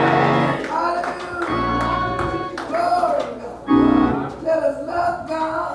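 Organ holding sustained chords under a woman's preaching voice, which rises and falls in sung, intoned phrases.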